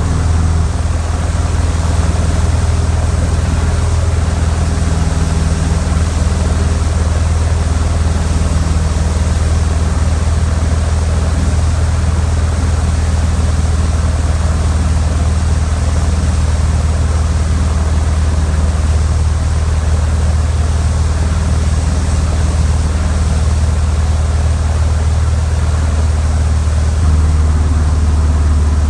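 Funk light airplane's piston engine and propeller droning steadily, with a strong low hum, and a slight change in tone about a second in and again near the end.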